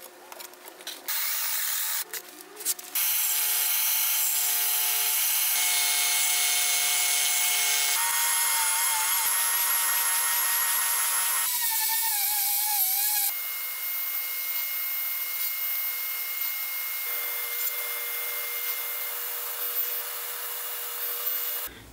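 Woodworking power tools running in short back-to-back cuts. Among them a Scheppach OSM100 oscillating spindle sander sanding the edge of a plywood disc. After that, a quieter machine runs steadily while a plywood board is pushed along a fence.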